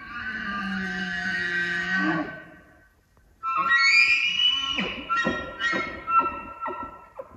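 Bull elk bugling twice. The first call rises in pitch and is held for about two seconds. The second starts with a high whistle that falls away into a run of short, grunting chuckles.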